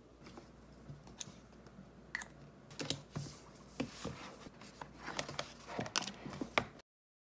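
Hands handling a paperback book on a desk: a run of light taps and paper rustles as the cover is opened and the pages turned. The sound cuts off suddenly near the end.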